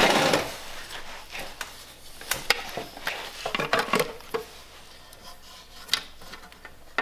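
Plastic battery-module cover and its wires being handled and fitted: a brief rustling rub at the start, then scattered light clicks and taps of plastic.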